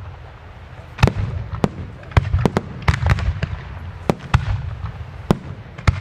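Aerial firework shells and salutes bursting in an irregular string of sharp bangs, with a rumbling echo between them. The bangs start about a second in, after a brief lull.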